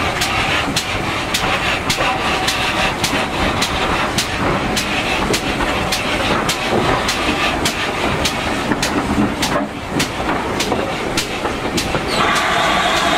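GWR 4200 Class 2-8-0T steam tank locomotive No. 4247 and its train on the move, a steady rumble with a regular beat of about three sharp clicks a second. A broader hiss comes in near the end.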